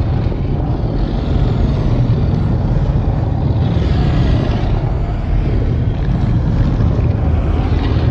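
A custom sound effect for a giant kraken: a loud, steady, deep rumble, with faint high whooshes sweeping up and down on top of it a few times.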